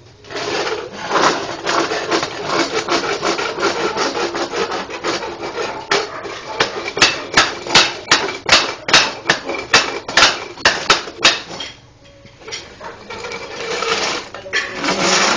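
Small metal-framed child's chair scraping and juddering across a concrete floor as a toddler pushes it, with a run of quick regular scrapes about two or three a second in the middle, a short pause, then more scraping near the end.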